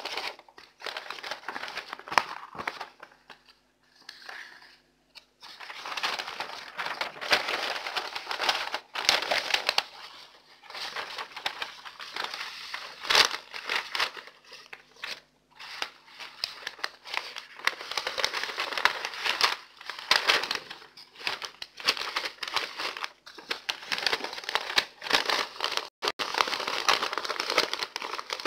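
Greaseproof butter paper crinkling and rustling in irregular bursts as bunches of fresh parsley and dill are laid on it and wrapped, with a brief lull about four seconds in.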